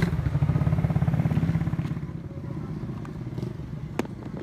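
Motorcycle engine running with an even low pulse, loudest for the first two seconds and then quieter, with a single sharp click near the end.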